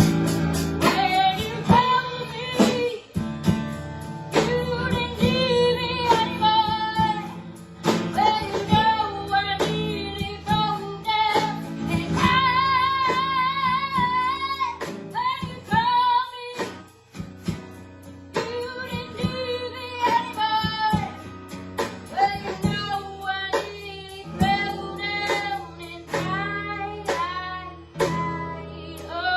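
A woman singing a song with acoustic guitar accompaniment.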